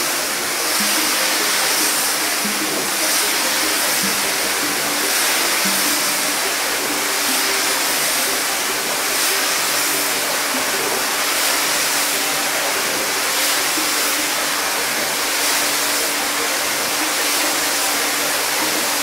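Pressure-washer spray wand jetting water onto a rug, a steady hiss, under soft background music with long held notes.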